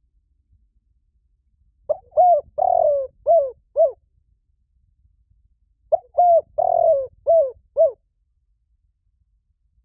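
Spotted dove cooing: two phrases about four seconds apart, each of five short falling coos, the middle coo longer and fuller. This is a decoy dove's call, used to lure wild doves.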